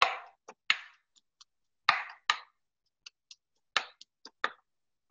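Pestle pounding fresh ginger and garlic in a mortar, crushing them. About seven irregular knocking strikes, a few of them hard, with light clicks of pestle on mortar between them.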